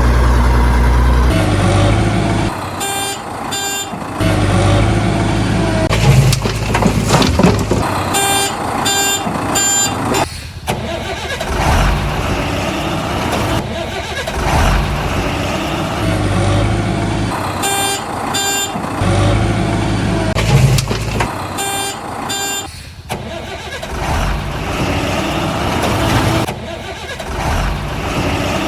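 Heavy vehicle engine rumble with short bursts of pulsing electronic beeps, the whole pattern repeating about every fourteen seconds like a looped sound effect.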